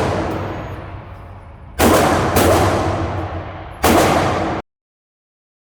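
AR-15 rifle firing two single shots about two seconds apart, each followed by a long echoing decay, after the fading tail of a previous shot. The sound cuts off abruptly soon after the second shot.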